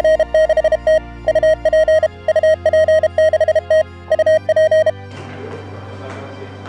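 Rapid Morse code (CW) on a single steady tone, from a radio on the 160-metre band. It stops about five seconds in and gives way to a hissing, crackling noise.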